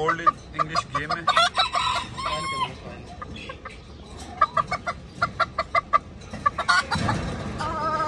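Chickens clucking in quick runs of short calls, a rooster and hen close by, with a longer wavering call near the end.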